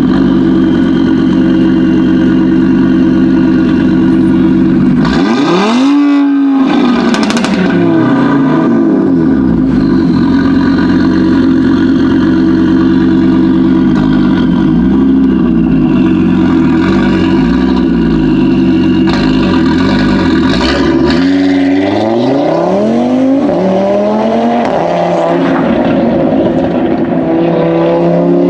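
Audi RS3 8V's turbocharged five-cylinder engine through a Milltek exhaust, running at a steady note. A quick rev rises and drops about six seconds in, with a sharp blip just after, and the revs climb again over a few seconds near the end.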